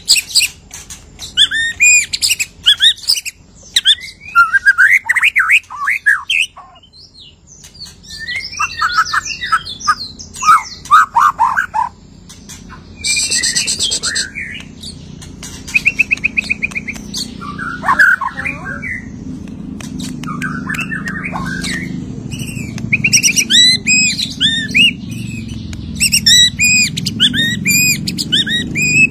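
White-rumped shama (murai batu) singing a long, varied song of whistled sweeps, chatters, rapid note trains and a harsh buzz, the full repertoire of mimicked phrases a shama sings once it is through its moult. A low steady rumble runs underneath, growing in the second half.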